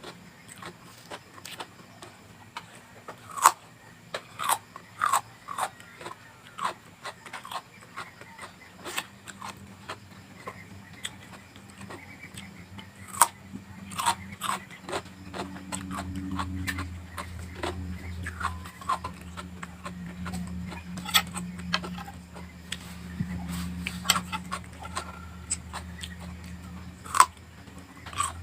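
Close-up chewing and biting of vegetables, with irregular crisp crunches. A low steady hum joins in about halfway.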